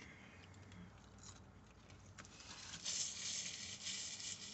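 Faint rustling and crackling of a paper napkin being handled, starting about three seconds in, after a few soft clicks.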